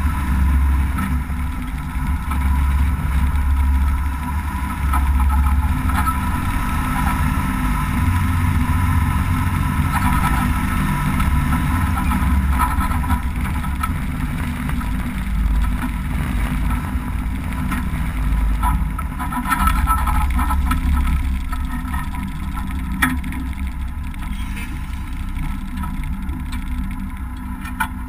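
Cummins 6CTA8.3 inline-six turbo diesel of an M923A2 5-ton 6x6 military truck running steadily as the truck drives over dirt, heard from a camera on the outside of the cab door, with a deep rumble and occasional knocks and rattles. It grows quieter over the last few seconds as the truck slows.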